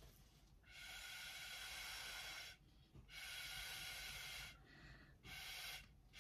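Puffs of breath blown through a straw to push wet fluid acrylic paint across a canvas: three faint, airy hisses, the first two lasting over a second each and the third short, with another starting right at the end.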